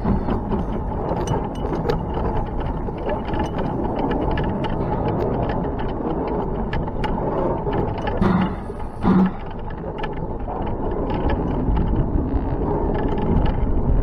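Hunslet-built steam locomotive Y542 rolling slowly over points, heard from its front buffer beam: a steady running rumble with scattered wheel-on-rail clicks. Two brief louder thumps come about a second apart just past the middle.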